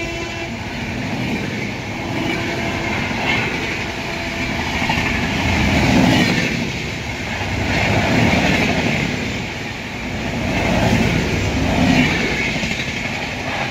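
Indian Railways express train's LHB passenger coaches running past at speed: a steady rush and rumble of wheels on rail that swells and fades every couple of seconds. The last of the locomotive's horn dies away in the first moment.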